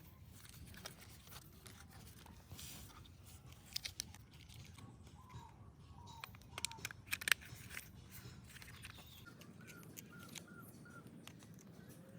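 Faint scattered clicks and taps of plastic toy pieces being handled, with a few short high chirps: three around the middle and a quick run of five near the end.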